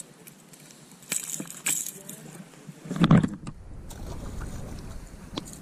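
Light metallic clinks and rattles of pliers against a plastic plug's treble hooks as a small mangrove snapper is unhooked. About three seconds in comes a loud thump, then a steady low rumble.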